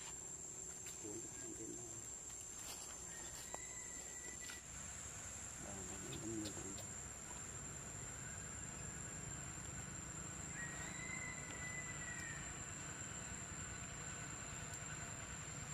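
Outdoor insect drone, a steady high-pitched tone, with faint bird calls over it: a few short low coos about a second in and again about six seconds in, and two thin whistles.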